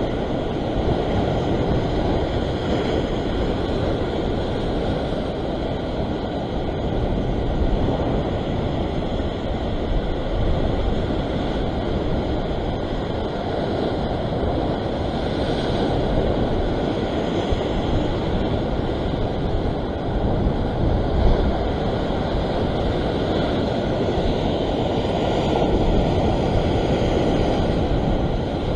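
Surf breaking and washing against sea rocks, a steady rushing noise, with wind buffeting the microphone.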